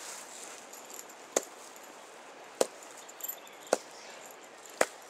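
Four sharp knocks about a second apart as a freshly landed salmon lying in the landing net is struck on the head to kill it.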